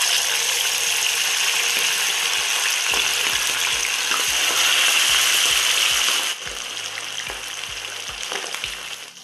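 Pieces of masala-marinated quail deep-frying in hot coconut oil in a stainless steel pan: a loud, steady sizzle, with a second piece lowered into the oil partway through. The sizzle drops noticeably in level about six seconds in.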